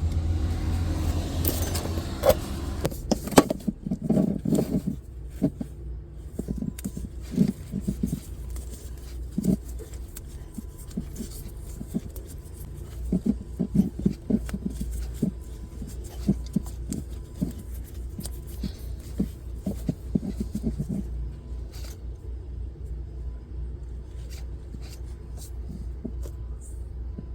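Scattered small clicks and knocks of wires and electrical connectors being handled, over a steady low hum.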